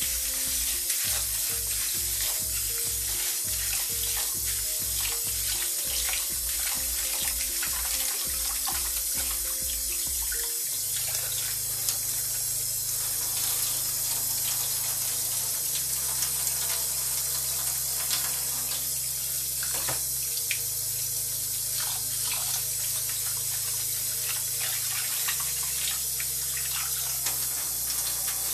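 Kitchen tap running into a stainless steel sink while raw rice is rinsed by hand in a plastic bowl: a steady stream of water with small splashes as the rice is swirled and the cloudy rinse water is poured off. Background music with a bass line plays underneath.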